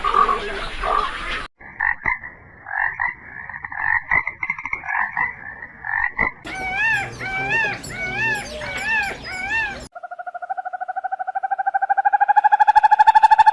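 Animal calls in separate sections with abrupt cuts between them: first a pulsing, chattering call, then about three seconds of repeated calls that rise and fall in pitch, then a long rapid trill that slowly rises in pitch and grows louder.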